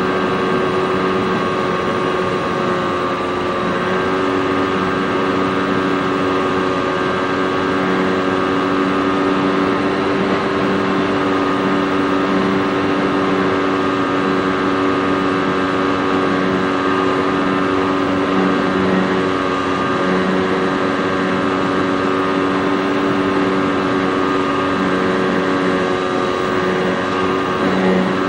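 Model airplane's motor and propeller running steadily in flight, heard from the onboard FPV camera, with a small change in pitch a few seconds in.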